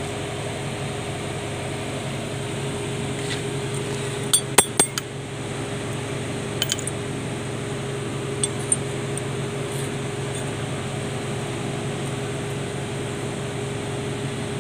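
Sharp metallic clinks of steel parts and tools being handled while working on a truck's PTO unit. A quick run of three or four comes about four seconds in, then a pair, then another pair a couple of seconds later, all over a steady background hum.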